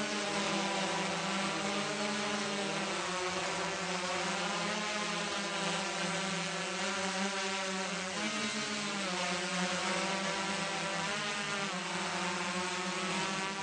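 Steady motor hum of the camera aircraft filming from above, its pitch drifting slightly and wobbling briefly near the middle.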